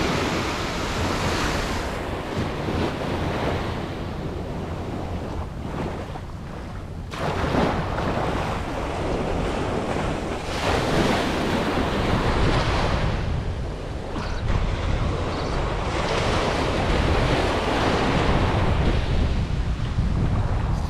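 Small ocean waves breaking in the shallows and washing up the sand, the wash swelling and fading every few seconds. Wind rumbles on the microphone throughout.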